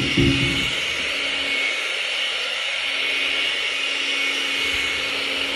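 An old handheld hair dryer running steadily, a constant blowing hiss over a low motor hum. A brief low thump sounds right at the start.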